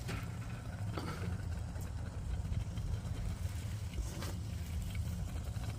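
Wood fire burning in a small twig stove: a steady low rumble with a few faint crackles.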